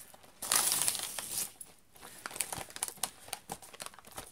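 Plastic toy packaging crinkling and tearing as it is opened by hand. There is a loud burst of rustling about half a second in, then softer crinkles and small clicks.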